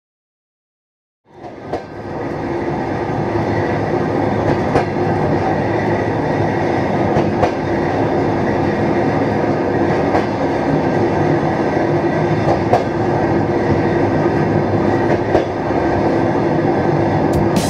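Train running along the track: a steady rumble of wheels on rails with a sharp click every couple of seconds as the wheels pass rail joints. It starts after about a second of silence.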